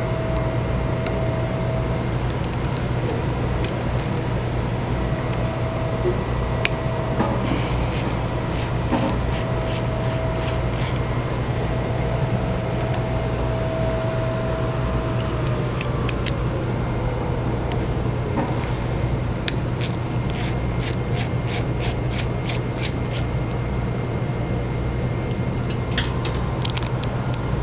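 Hand tool with a PZ1 Torx bit working the small screws on a burner's fuel-stem mounting plate: two runs of quick light clicks, about three a second, over a steady low hum.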